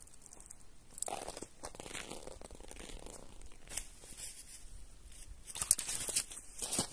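Rustling and crunching handling noise with a few sharp knocks near the end: footsteps on sand and fishing tackle (rod and landing net) being handled while a fish is landed.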